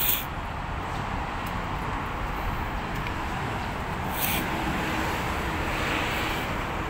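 Steady outdoor background noise with a low rumble, and a brief hiss about four seconds in.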